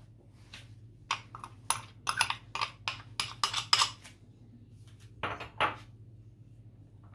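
Metal spoon clinking and tapping against a bowl while cornflour is spooned in: a quick series of sharp taps from about a second in to about four seconds, then two more a little after five seconds.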